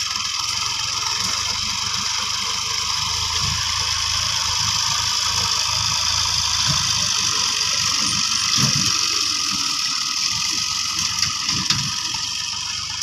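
Fiat tractor's diesel engine running steadily under load as it pulls a seed drill through tilled soil. It grows louder as the tractor passes close and fades as it moves away near the end, with a few clicks and rattles from the implement.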